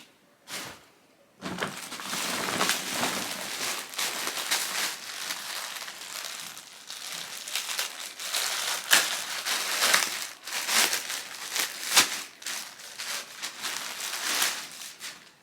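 Packaging crinkling and rustling as a clothing item is pulled open and unwrapped. There is a short rustle near the start, then continuous crinkling with sharp crackles.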